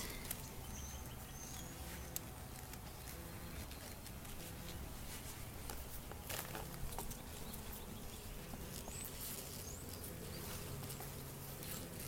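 Honeybees buzzing steadily with a low hum around an open hive, with scattered light clicks and scrapes as a wooden frame stuck with propolis is worked loose with a frame grabbing tool.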